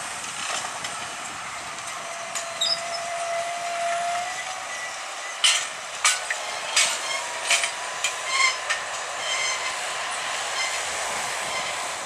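John Deere 7530 tractor's six-cylinder diesel running under load as it pulls a five-furrow Lemken reversible plough through the soil. From about five to nine seconds in, a series of sharp clanks and rattles comes from the plough and trailing packer.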